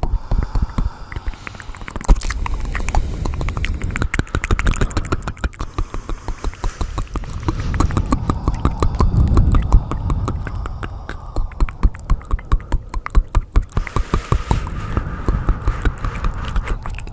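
Layered ASMR trigger sounds: rapid, dense clicking and tapping with scratchy noise over a low rumble.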